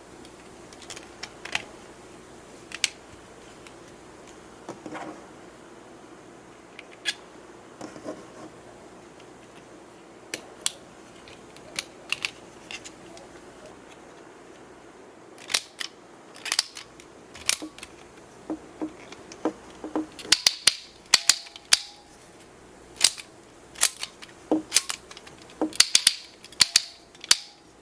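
Sharp plastic clicks from a 3D-printed PETG clicky hexagon fidget toy: a few scattered clicks at first, then, from about halfway through, a quick run of many loud clicks as its click switches are worked.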